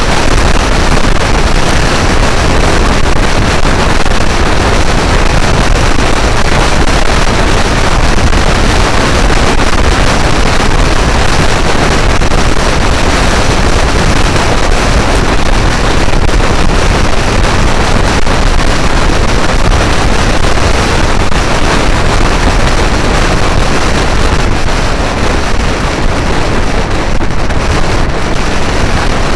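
Loud, steady wind buffeting the microphone of a camera on a moving Vespa GTS scooter, with the scooter's running and road noise mixed in.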